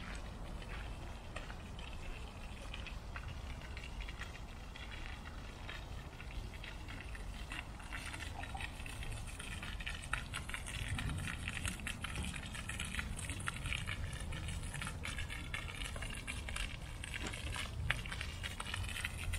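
Small garden-fountain jet splashing steadily into its stone basin, a continuous watery hiss over a low rumble, a little fuller from about eight seconds in.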